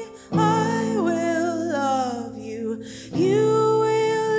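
A woman singing long held notes over a strummed hollow-body electric guitar. Her voice slides downward in the middle, then settles into a long sustained note about three seconds in.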